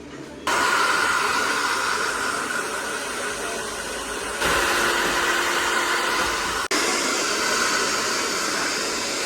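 Hair dryer blowing steadily. It starts abruptly about half a second in, and the sound jumps sharply twice, a little over four seconds in and near seven seconds in.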